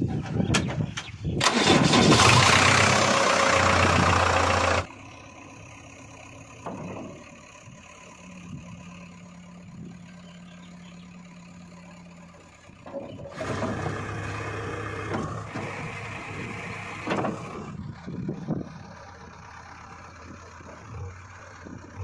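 JCB 3DX backhoe loader's diesel engine running: loud for the first few seconds after a few sharp clicks, dropping off suddenly, then quieter with a steady hum, and louder again from about thirteen seconds in.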